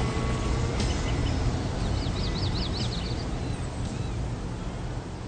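Birds chirping over a steady hiss of splashing water, with one quick warbling trill about two seconds in.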